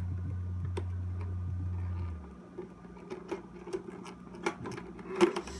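Small irregular clicks, taps and crinkles of a trading card tin's packaging being handled as its contents are taken out, over a steady low hum that cuts out about two seconds in and comes back near the end.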